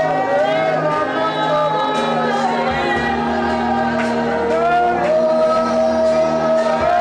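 Live gospel worship music: voices singing long, sliding notes over sustained accompaniment.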